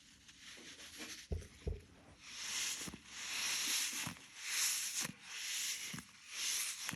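A stretchy hand-shaped squishy toy being squeezed and rubbed close to the microphone for ASMR: a series of soft, hissing rubs about one a second, with two light taps a little over a second in.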